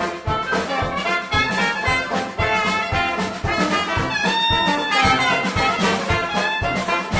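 Dixieland jazz band playing live, trumpet and trombone lines weaving over a steady beat of about two to three low pulses a second.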